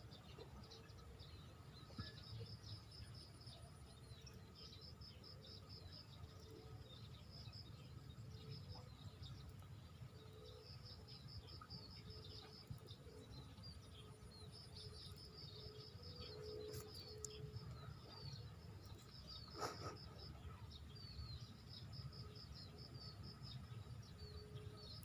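Faint swamp ambience: insects chirping in repeated quick trains over a steady high drone, with scattered bird calls and a low rumble. One sharp click comes about twenty seconds in.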